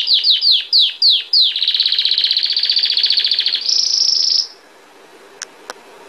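Belgian canary singing. A run of quick falling slurred notes leads into a fast rolling trill, then a higher, buzzier trill, and the song stops about four and a half seconds in. Two faint clicks follow near the end.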